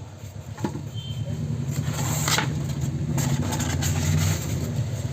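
A cardboard box being opened by hand, with a few brief rustling scrapes, the strongest about two seconds in, over a steady low engine-like hum.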